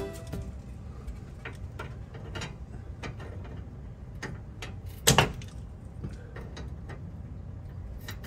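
Light metallic clicks and taps of a rear brake-line retaining clip being worked off its bracket, with one sharper click about five seconds in.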